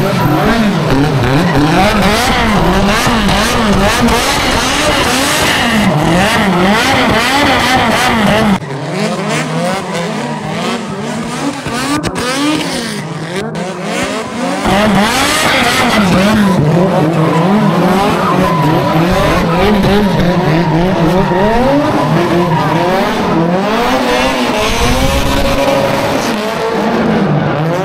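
Car engine revving hard, its pitch rising and falling over and over, over tyre squeal: a car spinning its tyres while drifting. The noise dips for a few seconds about a third of the way in, then comes back loud.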